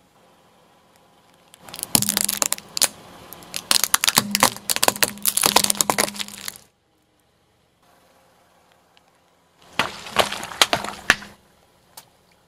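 Brittle objects cracking and crunching as a car tyre rolls over and crushes them. There are two bouts of dense snapping, one about five seconds long and a shorter one near the end.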